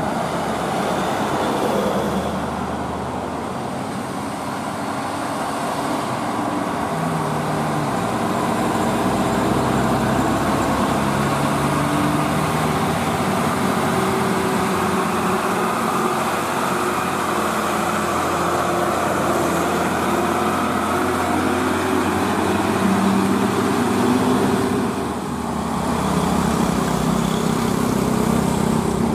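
An old Mitsubishi Fuso truck's diesel engine runs hard as the loaded truck climbs a steep hill and passes close by, its pitch stepping up and down. Near the end the sound dips briefly, then a second truck's diesel engine comes in as it climbs.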